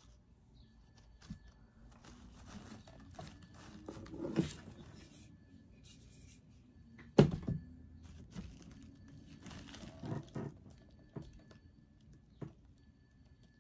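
Hands handling craft pieces on a glass-topped table: rustling of artificial succulent flowers and paper, a few light taps, and a sharp knock about seven seconds in as the shadowbox frame is set down on the table.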